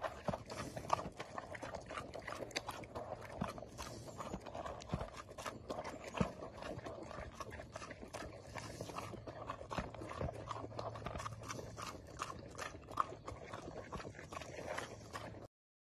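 A pig slurping and smacking noisily with its snout in a bowl: a steady run of rapid, wet, irregular smacks and clicks, with a few sharper ones standing out.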